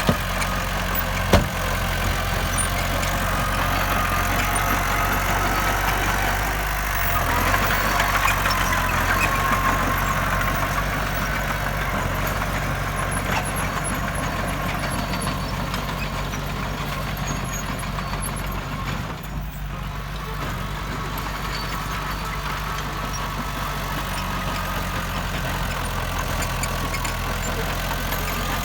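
Heavy diesel construction machinery running steadily at low revs, with one sharp knock about a second in and a louder, busier stretch a few seconds later.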